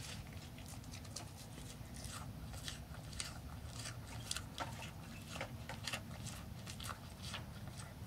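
Mule deer chewing food in short, irregular crisp crunches, several a second, over a steady low hum.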